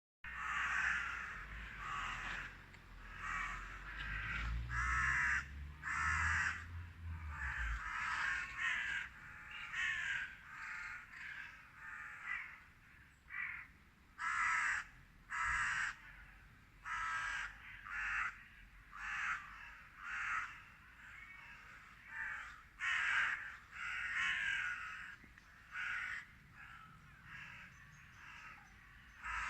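Corvids cawing: a continuous chorus of harsh caws from several birds, the calls overlapping one after another.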